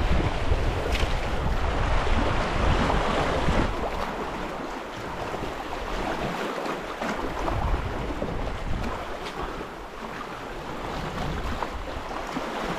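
Sea waves washing and lapping over shoreline rocks, with wind buffeting the microphone. Louder with heavy wind rumble for the first few seconds, then a softer steady wash.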